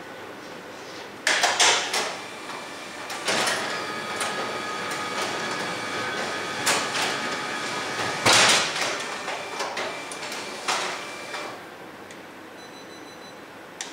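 Kyocera KM-C2525E colour laser copier running a job: clicks and clunks as the feeder and paper path start, then a steady motor whine. About eight seconds in a loud clack as the front door is pulled open mid-job to force a jam, and the mechanism stops soon after.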